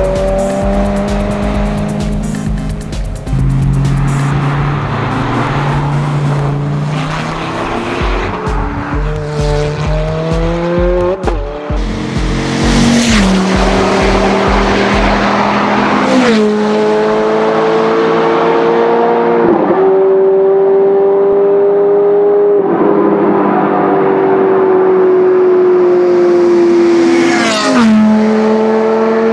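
Sports car engines accelerating hard through the gears: the pitch climbs steadily and drops sharply at each upshift, several times in the second half.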